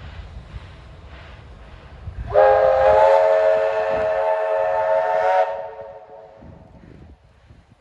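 Steam locomotive whistle blowing one loud blast of about three seconds, several tones sounding together as a chord with a hiss over them, starting a couple of seconds in and cutting off sharply; a low rumble of the train runs underneath.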